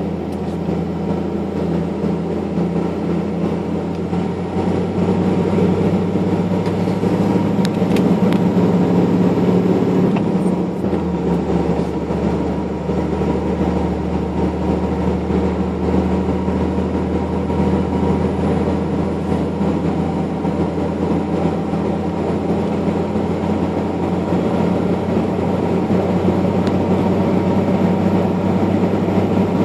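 Engine and road noise of a vehicle on the move, heard inside the cab: a steady drone whose note shifts about ten seconds in, with a faint high whine above it.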